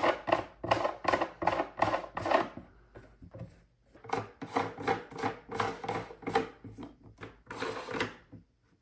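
Legs being fitted onto a docking-station monitor stand by hand: a run of quick scraping, rubbing strokes, a short lull about three seconds in, then a second run of strokes.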